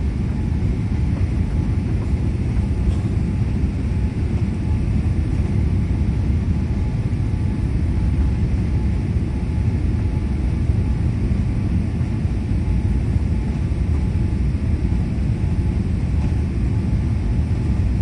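Steady low rumble of cabin noise inside a Boeing 787-8 Dreamliner airliner on final approach to landing.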